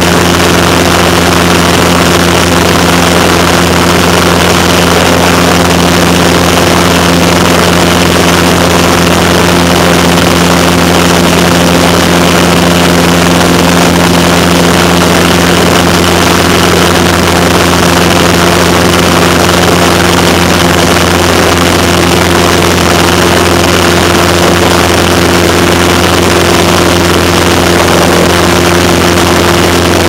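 Cessna 172's piston engine and propeller running steadily in flight, heard from inside the cabin: a constant hum of several pitches under a loud rush of wind.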